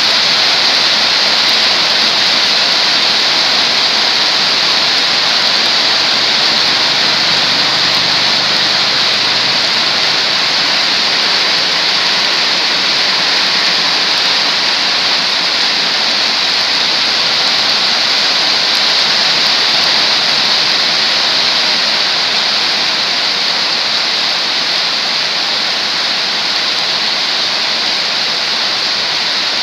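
Heavy tropical downpour: a loud, steady hiss of rain pouring onto a wet road and puddles.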